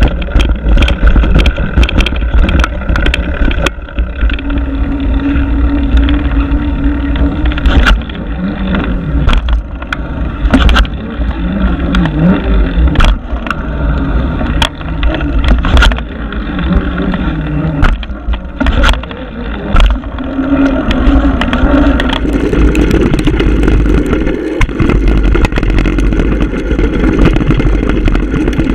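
Mountain bike riding down a dirt and rock trail, heard from a camera on the bike or rider: steady wind rumble on the microphone, with frequent sharp clicks and rattles from the bike over rough ground.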